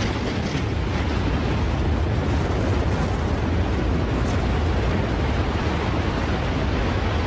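Tsunami surge of floodwater and debris rumbling: a steady, deep roar with a hiss over it.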